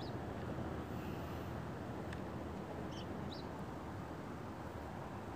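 A few short, high bird chirps over a steady low rumble.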